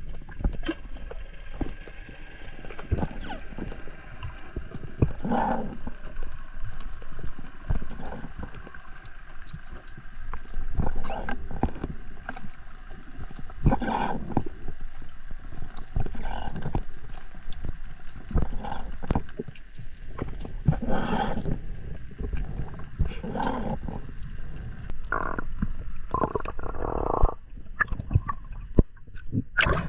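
Underwater sound picked up by an action camera: muffled water noise with irregular knocks and clicks, and several louder rushes of noise.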